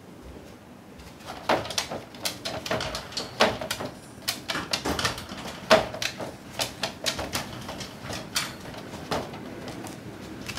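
Chihuahua–Maltese mix puppy crying in many short, repeated cries at being left alone: the separation anxiety that sets in as soon as its carer leaves the room.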